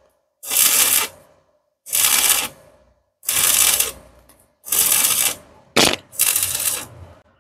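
Stick (shielded metal arc) welding arc crackling in short bursts, about six times, roughly one every second and a half, as the electrode is struck and broken again and again on a vertical-up (3G) joint, laying the bead one puddle at a time.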